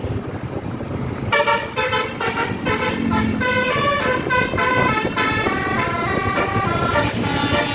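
Bus telolet horn, a multi-tone horn playing a quick tune of short notes that step up and down in pitch. It starts about a second in, over a low rumble.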